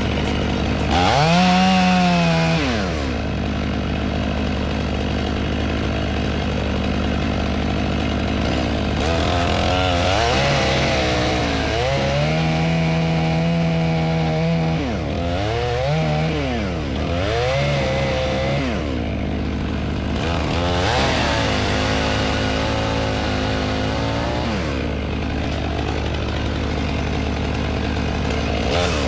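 Stihl MS 500i fuel-injected two-stroke chainsaw cutting wood, revving up and down repeatedly, its pitch dipping and recovering as it loads in the cut.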